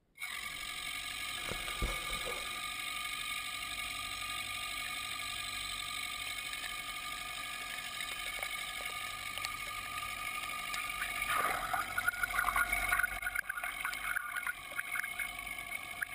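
Portable air-powered tote mixer running in a water-filled tote, its disc impeller churning the water: a steady mechanical hum with several held tones over a rushing, gurgling wash. Irregular splashing bursts come and go from a little past the middle toward the end.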